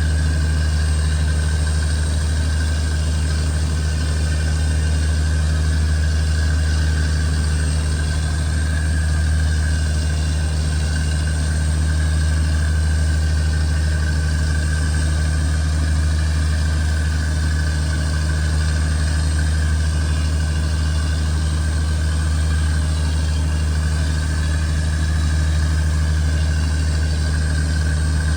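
Fishing boat's engine running at a steady speed, a loud, constant low hum.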